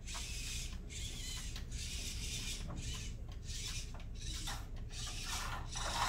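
Small VEX IQ competition robot's drive motors and wheels running in short bursts on the foam field tiles. The bursts come and go several times over a steady low hum.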